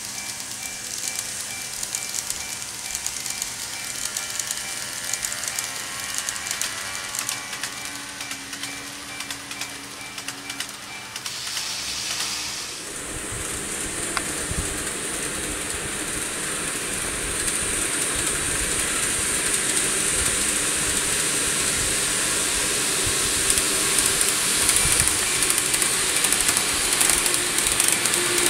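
KATO N-gauge 115 series model train running on layout track: a faint motor whine at first, then a rattle of small clicks from the wheels on the rails that grows louder over the second half as the train comes toward the microphone.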